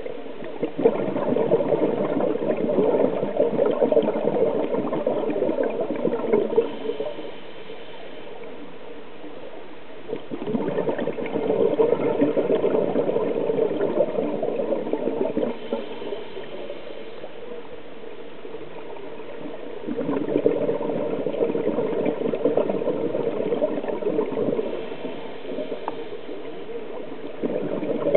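Scuba diver breathing underwater through a regulator. There are three long exhalations of bubbles rushing from the exhaust, each about five seconds, and between them quieter inhalations with a faint hiss.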